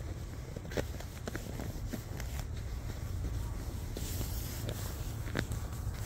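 Footsteps crunching on snow at walking pace, some crunches sharper than others, over a steady low rumble.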